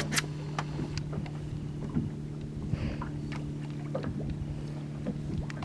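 A boat's motor humming steadily, with scattered light clicks and knocks.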